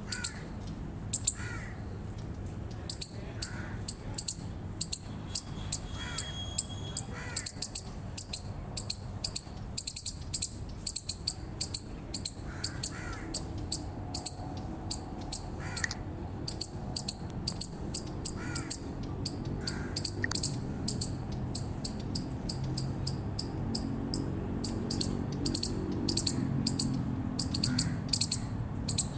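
Eastern chipmunk giving its repeated chip call, the alarm call of the species: a sharp, high-pitched chip about twice a second, kept up steadily. A few fainter, lower call notes and a low rumble sit beneath it.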